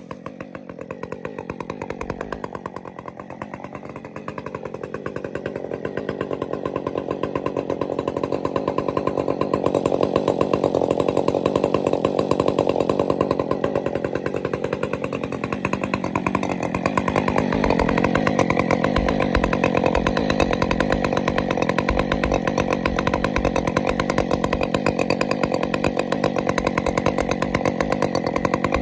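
Husqvarna 562 XP Mark II two-stroke chainsaw with a Steadfast Forestry Products aftermarket exhaust, running steadily. It grows louder over the first several seconds, then holds, with a slight change in its tone about two-thirds of the way through.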